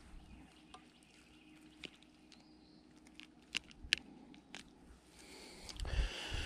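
Mostly quiet, with a few faint scattered clicks and taps from handling a freshly caught bass, then a low rumbling noise on the microphone from about five seconds in.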